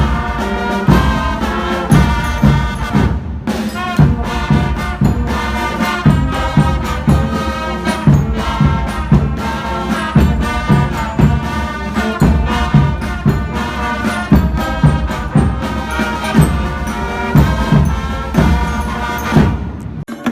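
Background music with a steady beat, which stops abruptly just before the end.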